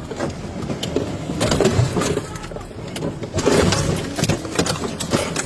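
Vehicle engine noise heard from inside a police cruiser, with irregular knocks and clatter.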